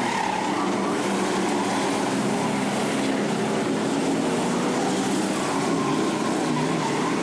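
Several race cars' engines running hard together as the pack laps the track, a steady, loud, overlapping engine noise.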